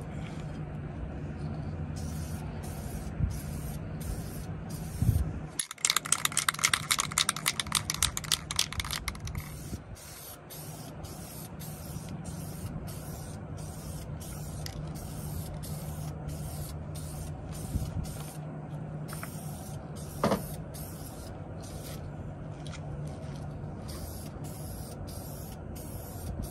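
Aerosol can of black spray paint, shaken hard for about three seconds with its mixing ball rattling, then hissing as paint is sprayed onto plastic trim pieces. A steady low hum runs underneath.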